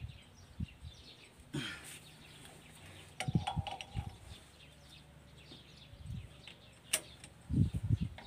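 Irregular metal clinks and light knocks of a socket wrench turning the mounting bolts of an excavator swing motor, with birds chirping faintly in the background.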